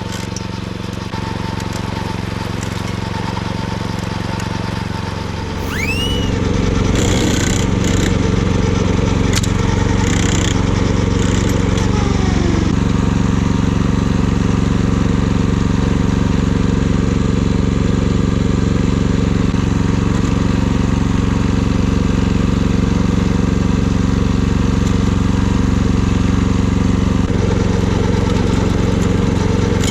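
Kyoritsu AZ646 wing mower's engine running steadily while cutting grass. It gets louder and changes note about six seconds in, with a few short sharp clatters over the next several seconds.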